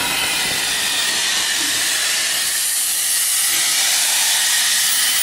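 NSW C32 class steam locomotive 3237 letting off a loud, steady hiss of steam.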